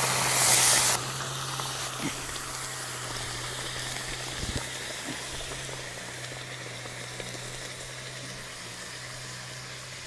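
Hot stone hissing and sizzling in the water of a bark container during stone boiling, loud for about the first second and then settling to a faint steady hiss.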